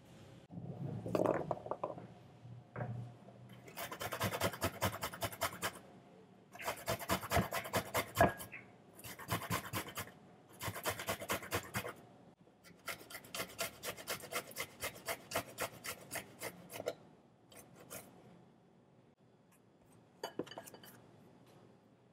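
Garlic being grated by hand on a stainless steel box grater over a glass bowl: quick rasping strokes, about five a second, in several runs of a few seconds with short pauses between.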